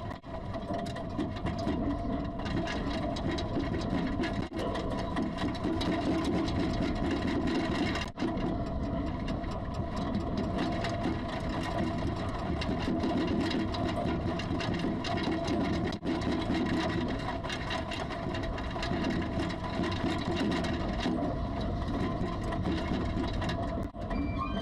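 Continuous rattling and rumbling during the 2011 Tōhoku earthquake: dense rapid clicking over a low rumble and a steady hum, with a few brief drop-outs. It is the sound of the camera and its surroundings being shaken by the quake.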